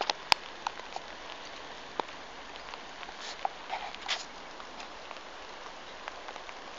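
Light rain falling, a steady hiss with scattered drops ticking close by. A single sharp click just after the start.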